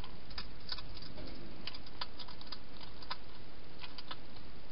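Wild hedgehog feeding at a bowl inside a plastic feeding box: irregular small clicks, some in quick clusters, over a steady hiss.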